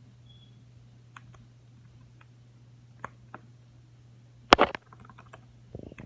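Scattered clicks and taps of a computer keyboard and mouse, with one much louder knock about four and a half seconds in, over a low steady hum.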